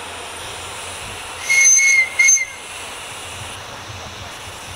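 A 7¼-inch gauge miniature steam locomotive's whistle blows twice, a longer toot and then a short one, over a steady hiss of steam.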